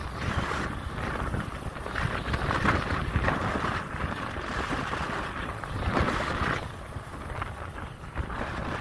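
Wind buffeting the microphone of a moving motorbike, swelling and dipping irregularly, over the low rumble of the ride along a dirt road.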